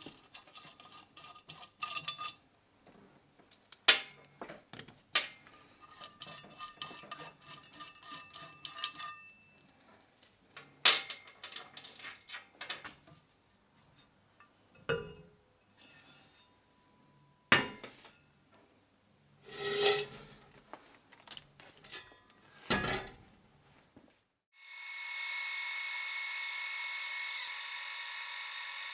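Steel motor-mount bracket clinking, scraping and knocking against the cast housing of an electric motor as it is fitted by hand, with several sharp metal knocks. About 24 seconds in, a milling machine's spindle starts and runs steadily with a whine of several steady tones, its drill bit not yet cutting.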